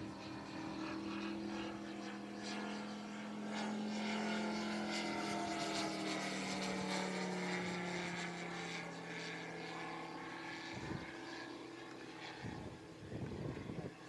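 Engine and propeller of a large radio-controlled Hawker Sea Fury scale model in flight: a steady drone that slowly sinks in pitch midway as the plane passes. A few short rumbles of noise come near the end.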